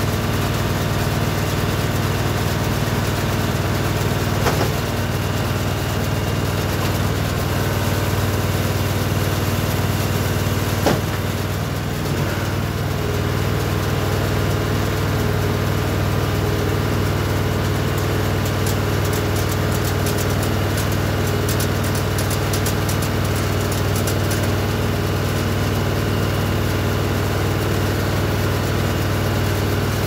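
Tractor engine running steadily while driving a small square baler through the PTO, the baler's pickup and mechanism clattering along with it. Two short sharp knocks come about four and a half and eleven seconds in, and a light rapid ticking comes partway through.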